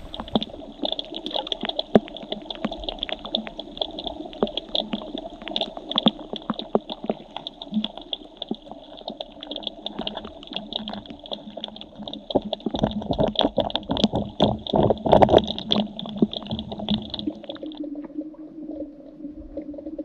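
Creek water heard through a submerged camera: a muffled, steady rushing peppered with many small clicks and knocks, busiest a little past the middle. Near the end the higher hiss drops out, leaving a lower hum.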